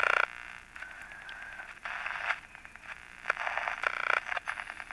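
Panasonic R-111 AM transistor radio being tuned across the band, its small speaker giving thin, tinny patches of static and snatches of station audio, with a brief whistling tone about a second in. The set is freshly repaired and not yet aligned.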